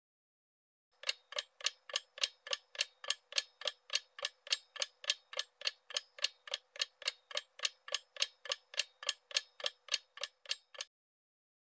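Ticking-clock sound effect under a quiz countdown timer: sharp, evenly spaced ticks at about three a second. They start about a second in and stop shortly before the end.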